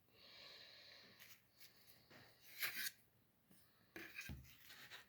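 Faint handling noises of 3D-printed plastic wall panels being fitted together: short scrapes and clicks, with a soft knock about four seconds in.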